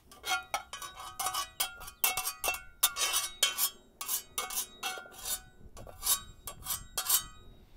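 Metal spatula scraping and knocking against a cast iron skillet as onions are pushed out of it onto a griddle: a quick, irregular run of sharp metallic clinks and scrapes, many of them briefly ringing.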